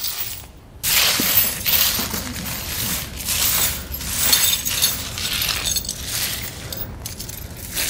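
Steel square-link snow tire chains rattling and clinking irregularly as they are dragged across a concrete floor and pushed behind a truck tire, starting about a second in.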